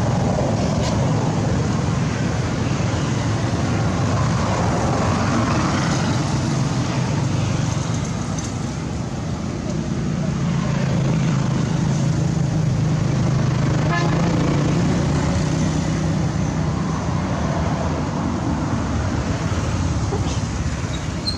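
Steady outdoor background of motor traffic, a low engine drone that swells for several seconds in the middle, with voices mixed in.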